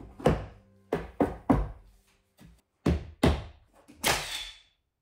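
A hammer knocking cedar boards onto a wooden beam: several sharp blows in the first two seconds and two more about three seconds in. About four seconds in, a nail gun fires once into the wood with a short hissing burst.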